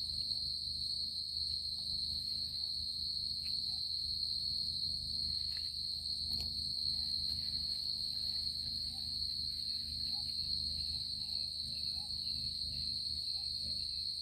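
Steady, high-pitched insect chorus droning without a break in the forest, over a low steady rumble, with one sharp click about six seconds in.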